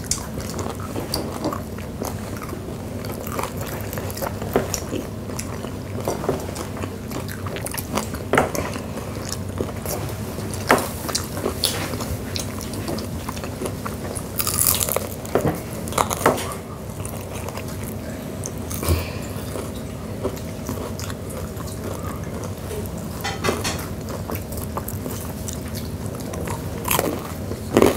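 Several people chewing and biting into deep-fried chicken gizzards in crisp batter, close to the microphone: irregular crunches and chewing, with a few louder crunches scattered through.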